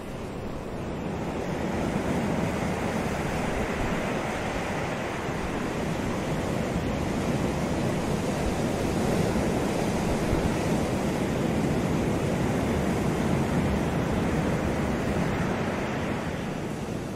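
Atlantic surf washing onto the beach: a steady rush of breaking waves. It grows a little fuller about two seconds in.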